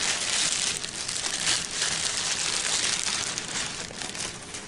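Packaging crinkling and rustling as a model train car is unwrapped by hand. The sound is a dense crackle that is loudest at first and gradually fades.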